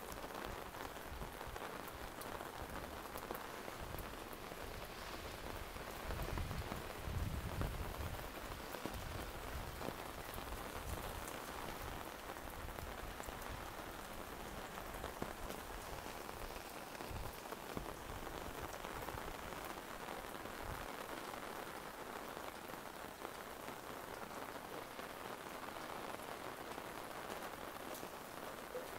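Steady rain falling, an even hiss with scattered fine drop ticks. A low rumble swells for a couple of seconds about six seconds in.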